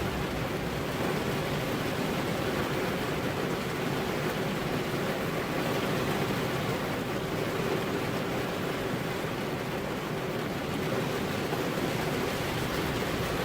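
Steady heavy rain: an even, unbroken hiss with no single drops or thunderclaps standing out.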